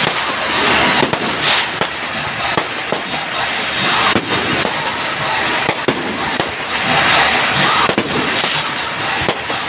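Fireworks going off: a dense, continuous crackle of many small bangs and pops, swelling louder about a second in and again near the end.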